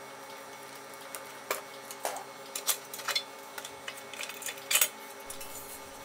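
Light metallic clicks and clatter as the thin sheet-metal shield covering a ViewSonic VX2235wm LCD monitor's circuit boards is worked loose and lifted off. There are several separate sharp clicks, the loudest toward the end.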